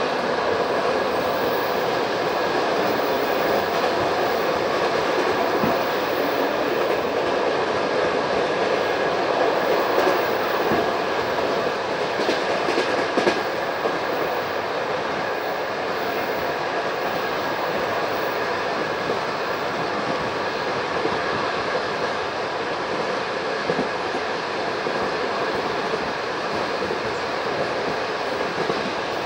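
Passenger coach running at speed, heard from inside: a steady rumble and hiss of the wheels on the rails, with occasional clacks over rail joints, a small cluster of them about twelve to thirteen seconds in.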